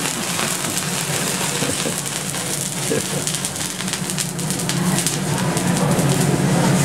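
Hot teppanyaki griddle sizzling and hissing as it is wiped down with a wet cloth, throwing up steam, with a run of crackling spatters in the middle. A steady low hum sits underneath.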